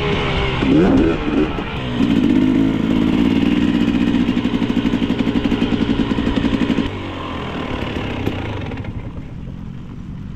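Dirt bike engine revving up and down, then held at steady high revs with a fast pulsing beat for about five seconds before dropping off suddenly; a quieter engine note follows.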